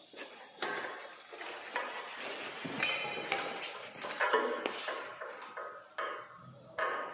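Irregular metallic clinks and rattles, some ringing briefly, as ceiling-fan blades, screws and a screwdriver knock against the metal motor housing while the blades are fitted.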